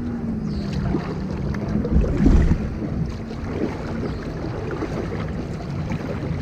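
Wind rumbling on the microphone, with water splashing and lapping around a kayak on open water.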